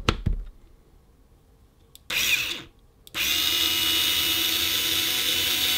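Bosch IXO 7 cordless electric screwdriver's motor and gearbox running under the trigger: a short burst about two seconds in, then a steady whine from about three seconds in.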